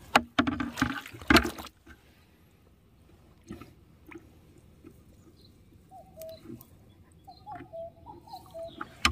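Water splashing and sloshing loudly for the first second and a half or so, then quiet with scattered small drips and splashes.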